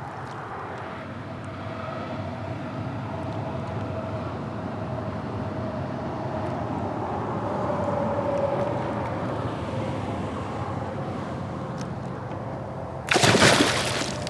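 Steady hum of interstate traffic, with a passing vehicle's tyre noise swelling and fading around the middle. About thirteen seconds in comes a loud, brief splash as the northern pike is released back into the water.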